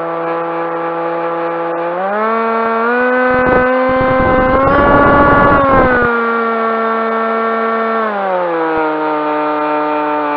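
Electric motor and propeller of a Skywalker FPV plane running steadily under throttle. The pitch steps up about two seconds in and comes back down about eight seconds in. Wind buffets the microphone in the middle.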